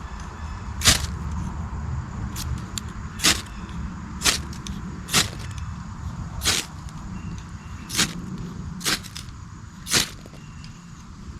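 Ferro rod being struck, about eight short, sharp scrapes roughly a second apart: throwing sparks onto tinder to light a fire.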